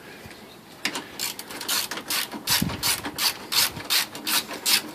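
Ratchet wrench clicking as it is worked back and forth to run down a bolt on the radiator's upper mounting bracket. Short bursts of ratchet clicks repeat about three times a second, starting about a second in.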